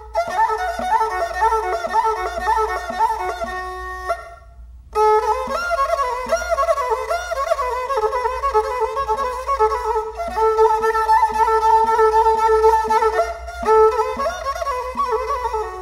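Instrumental background music: a pitched melody over a steady beat, which breaks off for about a second around four seconds in and then resumes.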